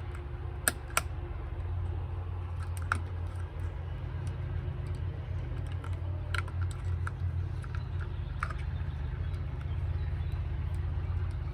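Scattered light clicks and taps, a few sharp ones near the start, over a steady low hum.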